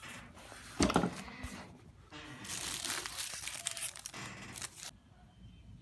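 Crinkling and rustling of plastic packaging as screws are fished out, with a couple of knocks about a second in.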